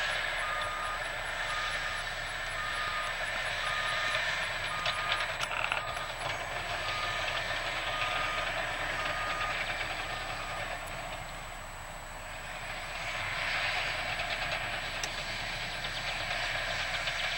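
A construction vehicle's reversing alarm beeping in a steady series over the running engine and machinery noise of heavy earthmoving equipment. The beeps stop about ten seconds in, and the machinery noise swells again near the end.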